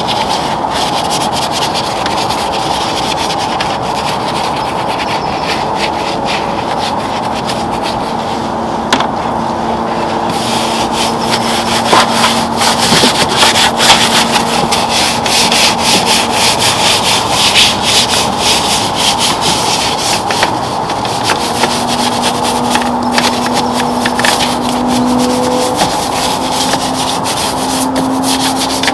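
Bristle detail brushes scrubbing soapy foam over engine-bay plastics and an intake tube: a steady scratchy rubbing of quick back-and-forth strokes, busier and a little louder from about ten seconds in.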